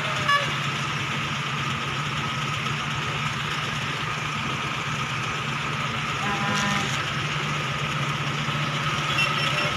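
Vehicle engine idling steadily, with a short click about a third of a second in.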